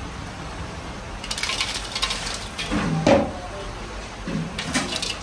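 Metal cooking utensils clinking and scraping against cookware in irregular clusters, over a steady low hum.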